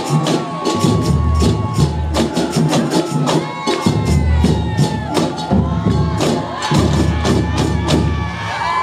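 Carnival samba drum section (batería) playing a fast batucada: deep bass drums pulse under rapid snare and small-drum strikes. The drumming stops near the end and crowd cheering comes up.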